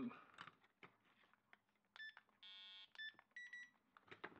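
Electronic beeps as the Touch and Race NFC antenna on an ImmersionRC Tramp video transmitter is read: a short beep, a buzzing tone of about half a second, another short beep, then a quick double pip. Faint handling clicks come in the first second.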